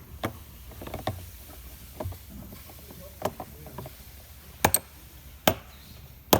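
Small hammer tapping a piece of metal used as a punch, driving a new latch pin into a Seahorse case's latch until it sits flush: about eight sharp metal-on-metal taps, irregularly spaced about a second apart, the strongest in the second half.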